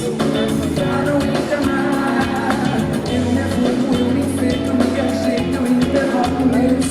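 Live pop band performance: sustained chords and bass over a steady drum beat, with singing at times.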